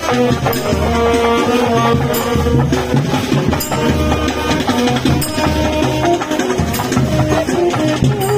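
Music with a steady, repeating drum beat, a melody over it, and a sharp percussive hit about every second and a half.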